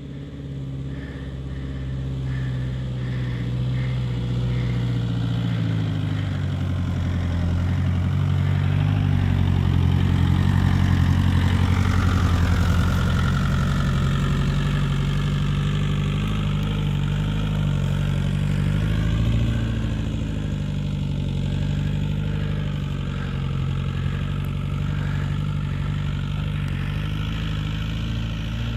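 Volkswagen T3 Syncro double-cab pickup's engine running under load off-road, its pitch rising and falling with the throttle. It grows louder as the van comes near, is loudest about ten to twelve seconds in as it passes, and goes on steadily as it drives away uphill.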